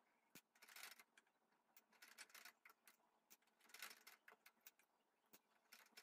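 Near silence, with faint, irregular rustles and light clicks of cloth being handled and pleated under a sewing machine's presser foot.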